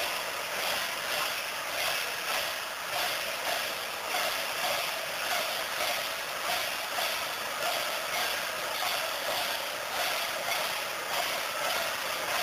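Dense festival crowd din with a regular pulse, about one and a half beats a second.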